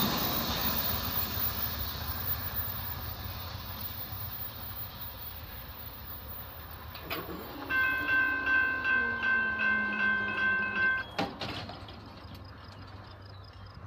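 A passing train's noise fading away, then a railroad crossing bell ringing at about three strokes a second for roughly three seconds, with a click just before it starts and as it stops, as the crossing gates go up.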